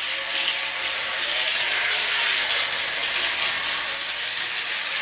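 1950s Tri-ang electric model locomotive running steadily around a loop of metal track, its motor and wheels making a continuous whirr.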